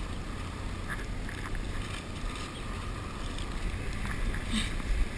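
Strong wind blowing on the microphone, a steady low rush with no distinct events.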